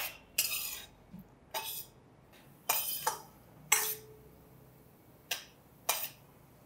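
Steel ladle clinking and scraping against a steel kadai, about seven irregular strokes, some sharp taps and a few longer scrapes, as cashews are stirred while frying in ghee.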